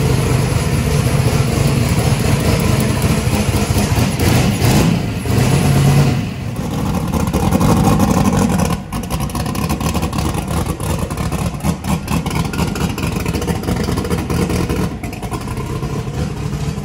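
Turbocharged V8 in a Ford pickup, newly converted to run on methanol, running after a warm restart. The throttle is blipped up twice, about five and eight seconds in, before the engine settles back.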